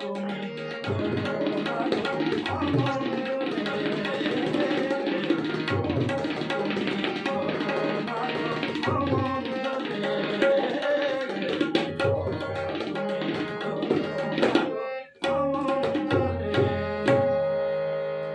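Tabla and harmonium playing together: fast tabla strokes over the harmonium's steady reed tone. Both stop dead for an instant about fifteen seconds in, then pick up again.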